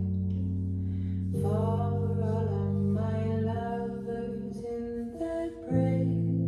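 Music played from a vinyl record on a Sony PS-LX310BT turntable: long held bass notes and chords changing every second or two under a melody line.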